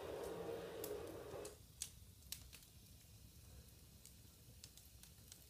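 Faint scattered clicks of a Shiba Inu's claws on a tiled floor as it shifts its feet, about a dozen irregular ticks. A low steady hum under them cuts off about one and a half seconds in.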